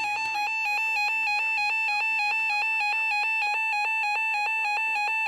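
NOAA weather radio receiver's built-in alert alarm: a shrill electronic two-tone warble that flips rapidly and evenly between two pitches, sounding on a Special Marine Warning alert.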